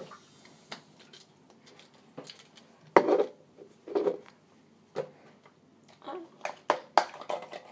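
Bathroom toiletries being picked up and set down: a string of irregular knocks and clinks, loudest about three seconds in and again around seven seconds in.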